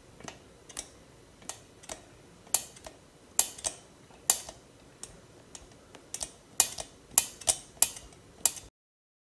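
Plastic piping bag crackling with sharp, irregular clicks as it is squeezed to pipe cream cheese topping. The clicks grow louder and closer together near the end, then the sound cuts off abruptly.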